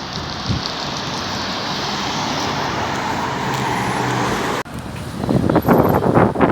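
Steady rushing outdoor noise of road traffic and wind with a low engine hum. After a sudden cut about two-thirds through, loud irregular gusts of strong wind buffet the microphone.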